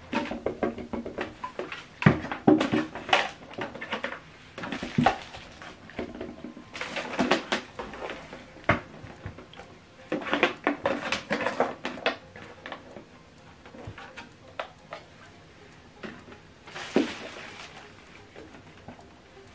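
Handling noise from plastic soundbar towers and cables being moved about and set down on a table: irregular clusters of clicks, knocks and light clattering, with a louder knock near the end.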